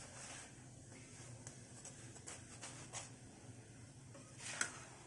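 Faint ticks and light scraping from a metal spatula pressing a gul poli against a hot iron tawa, with a brief louder scrape about four and a half seconds in, over a faint low steady hum.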